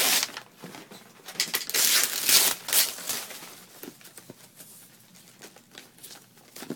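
Gift-wrapping paper being torn and crumpled by hand, with a loud stretch of ripping and crinkling about one and a half to three seconds in, then quieter rustling.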